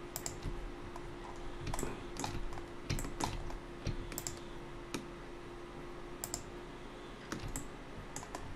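Irregular clicks of a computer mouse and keyboard keys, a few every second, over a faint steady hum.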